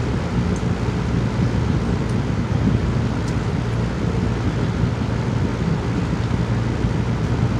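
A steady low rumble with a faint hum in it, holding an even level throughout. A few faint light ticks sit on top, fitting a metal fork against a bowl.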